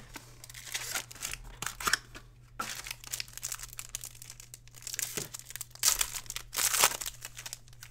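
Foil wrapper of a baseball card pack being torn open and crinkled by hand, in irregular crackling bursts, loudest near the end.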